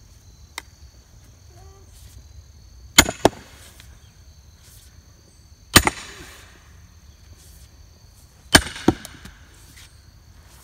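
Ten-pound sledgehammer striking the head of a diamond splitting maul, steel on steel, driving it into a large firewood round: three heavy strikes about three seconds apart, each followed by a quicker, lighter second knock.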